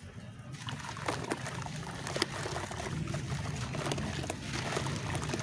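Dry, stony red dirt crumbling in water: a dense fizzing crackle with scattered sharp clicks, over a low steady hum.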